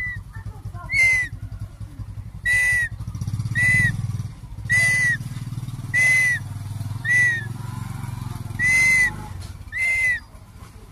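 A hawk gives a series of short, high whistled calls, each one rising and falling, about one a second and eight in all. A low steady rumble runs underneath.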